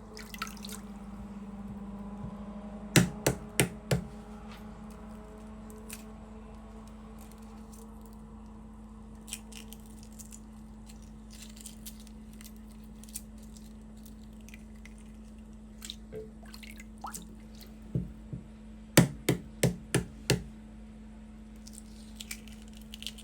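Hard-boiled eggs being cracked and peeled: a quick run of four sharp taps of shell on a hard surface a few seconds in, another run of about five taps near the end, and soft peeling sounds between, over a steady low hum.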